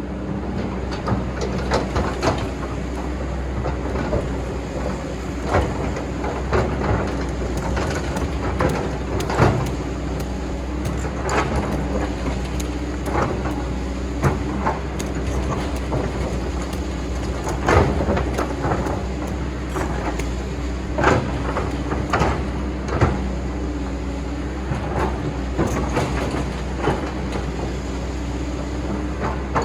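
Excavator's engine running steadily, with frequent irregular clanks and knocks of the machine at work digging.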